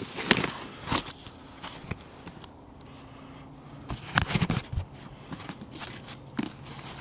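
Rustling, clicks and knocks of camping gear being handled and pulled out of a rucksack, with a busier run of knocks and scrapes about four seconds in.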